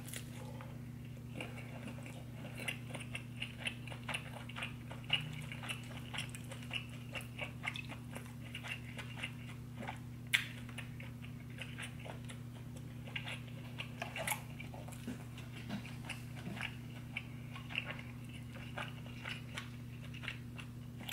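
Close-miked chewing and mouth sounds of a person eating a buttery seafood boil: many quick, irregular wet smacks and clicks, with one sharper click about ten seconds in, over a steady low hum.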